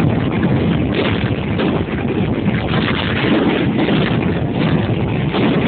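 Steady, loud rushing noise of rain and wind buffeting a phone's microphone held under a poncho.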